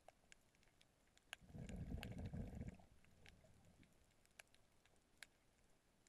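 Faint underwater sound picked up by a submerged camera: scattered sharp clicks, and a low rumble of moving water about a second and a half in that lasts just over a second.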